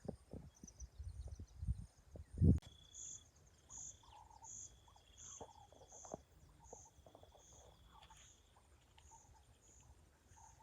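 Outdoor ambience in which a high chirp repeats evenly, about one every three-quarters of a second, and slowly fades. A faint steady high tone runs under the chirps for a while. Low rumbles and knocks of wind or handling fill the first couple of seconds.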